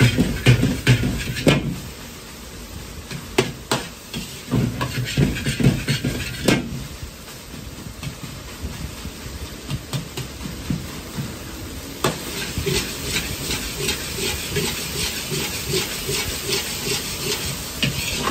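Metal wok ladle knocking and scraping against a wok while egg fried rice is stir-fried, over a steady hiss of the gas burner and sizzling rice. A quick run of knocks comes in the first couple of seconds, then a few single knocks, and from about two-thirds of the way in a fast, even tapping as the ladle presses and breaks up the rice.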